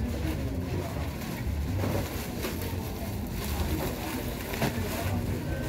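Rustling and crinkling of plastic and woven-sack wrapping as a packed bale of goods is handled and opened, over a steady low rumble.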